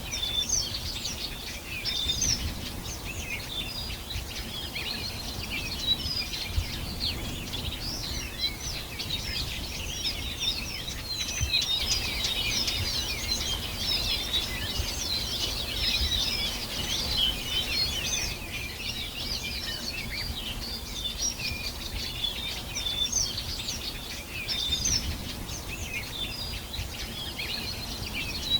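Many birds singing and chirping at once, a dense chorus of short, overlapping high chirps and trills, over a low background rumble.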